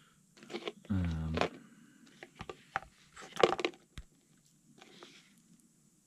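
Brittle, dried cornstarch-and-glue Starlite test pieces being handled: a scatter of small crinkling clicks and rustles, with a sharper knock about four seconds in. A brief vocal sound comes about a second in.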